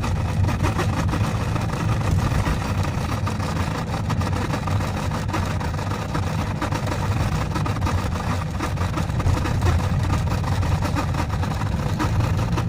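Steady low hum from the speedometer cable of a 1998 Toyota Corolla AE110, mixed with the car's engine and running noise, swelling slightly now and then. The cable began humming in frosty weather.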